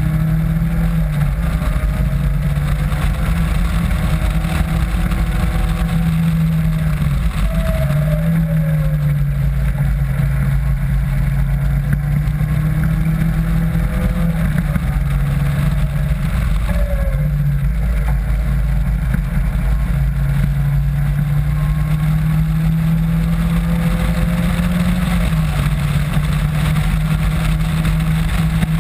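Caterham Classic's engine running hard at track speed, heard from the open cockpit, its pitch stepping down and climbing again several times as the car is driven around the lap. A heavy rumble of wind runs underneath.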